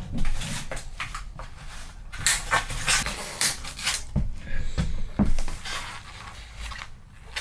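Packaging being snipped off with cutters: irregular sharp snips and clicks mixed with short rustles of wrapping being pulled away.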